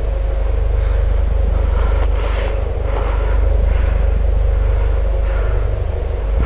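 A loud, steady low rumble with a faint hiss above it.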